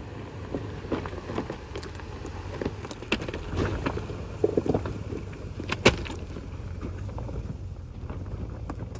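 2004 Lexus GX470 SUV driving slowly over a rocky off-road trail. A steady low rumble is broken by frequent irregular knocks and clatters, with one sharp bang about six seconds in.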